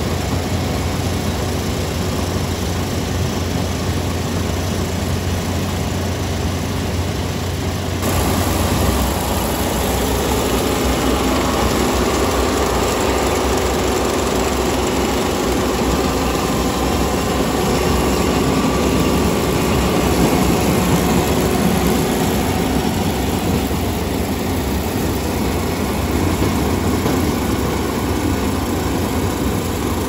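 Kubota ER470 combine harvester running steadily as it harvests rice, its diesel engine and threshing machinery making a constant mechanical drone. The sound changes abruptly about eight seconds in.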